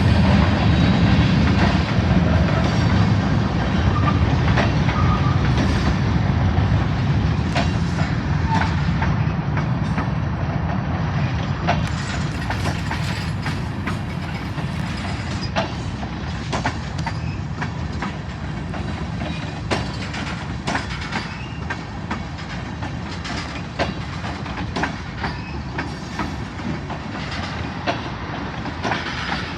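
Railroad cars rolling past with a steady low rumble and frequent clicks of wheels over the rail joints, slowly getting quieter.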